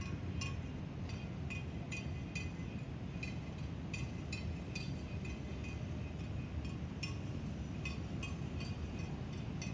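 Distant, steady low rumble of the Airbus A320-216's CFM56 jet engines as it passes high overhead. Short, high clinking chirps come a few times a second over the rumble.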